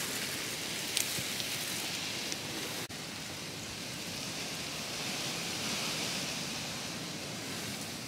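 A steady, rain-like hiss that briefly drops out about three seconds in. A few light clicks come in the first couple of seconds as hands work the stick hoop and string net of a ground bird trap.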